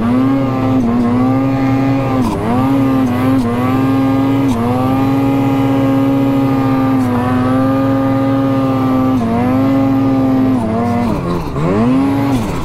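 Mountain snowmobile engine running at high revs under load as the sled climbs a steep chute in deep powder. The revs dip briefly and climb back several times, with a deeper drop and rise near the end.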